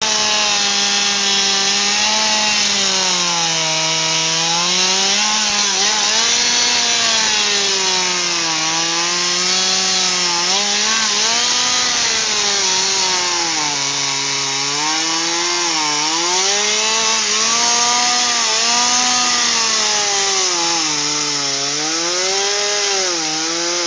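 Two-stroke chainsaw cutting through the trunk of a fallen tree for firewood. The engine runs at high speed, and its pitch sags each time the chain bites into the wood and recovers as it eases off, about a dozen times over the span.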